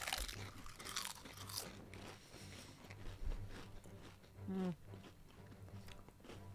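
People crunching and chewing Pringles potato crisps close to the microphones, a scatter of small irregular crunches. A brief falling vocal hum is heard about four and a half seconds in.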